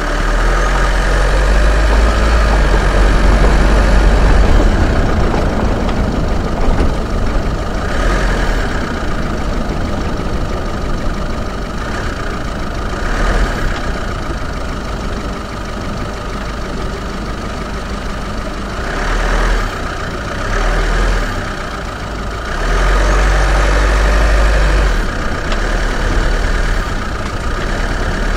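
Great Wall Hover H5 diesel SUV driving slowly along a rutted dirt track: the engine runs steadily and the tyres crunch and rumble over the ground, heard from a camera mounted outside on the bonnet. A deep rumble swells and eases every few seconds.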